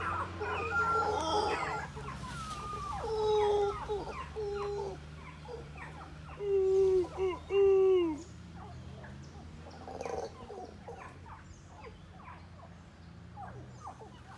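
Animal calls: a run of short, clear pitched notes, a first group about three seconds in and a louder group about six to eight seconds in whose last, longer note slides down in pitch.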